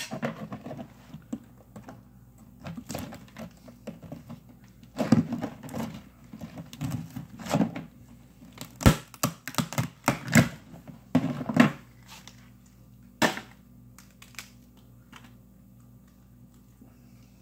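Irregular clicks, knocks and plastic crinkling from cleaned blue crabs being handled and packed into a zip-top freezer bag, busiest in the middle, with a few sharp clicks after that.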